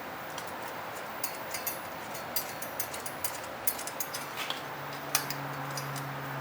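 Small metal parts clicking and clinking: washers and a bolt being handled and fitted to a disc-brake adapter. Many sharp light clicks come in scattered groups. A low steady hum comes in near the end.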